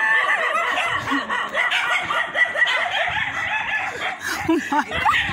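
Chickens clucking, with a rooster crowing.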